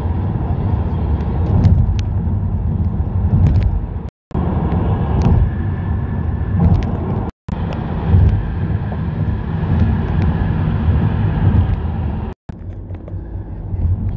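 Tyre and road rumble heard from inside a car moving at highway speed over interstate bridges, with a few faint clicks. The sound breaks off briefly three times.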